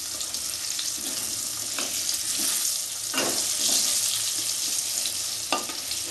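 Potato chunks sizzling as they fry in hot oil in a kadai, a steady hiss. A metal spatula turning them scrapes or knocks against the pan three times.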